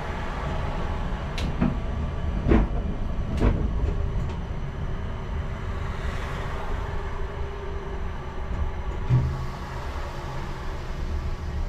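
Škoda Anitra 03T6 low-floor tram running along the track, heard from the driver's cab: a steady low rumble with a few sharp clacks in the first few seconds and a single thump about nine seconds in.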